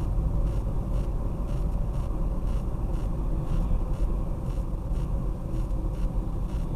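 A car driving, heard as a steady low rumble of engine and road noise.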